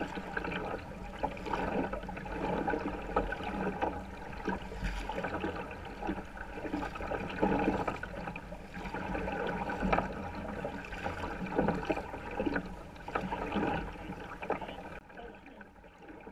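Kayak paddle strokes with sea water splashing and gurgling around the kayak's hull, swelling and easing every couple of seconds and growing quieter near the end.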